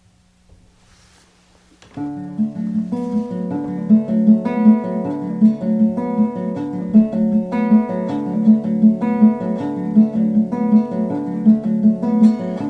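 Background music: an acoustic guitar picking a steady, rhythmic pattern, coming in suddenly about two seconds in.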